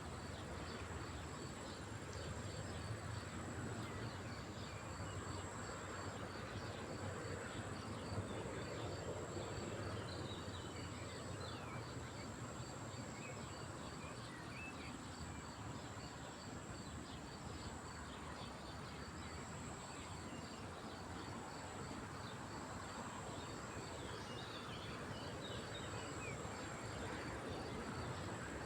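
Lakeside ambience: insects keeping up a steady high trill and a regular, evenly spaced chirping, with small birds chirping here and there over a soft background hiss.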